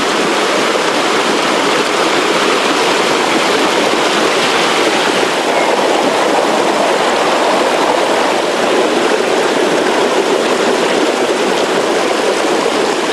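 Rushing river water pouring over small cascades between boulders, a steady unbroken rush.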